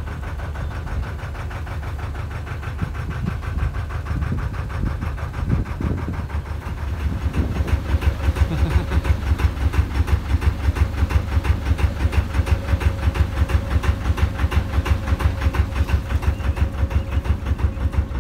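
Narrowboat's diesel engine ticking over, then running with a louder, regular pulsing beat from about seven seconds in.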